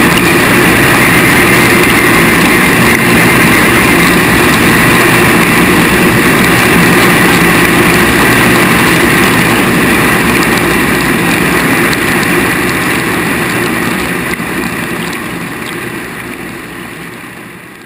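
Dishwasher running, its wash pump and spray jets heard from inside the tub as a loud, steady mechanical rush, fading out near the end.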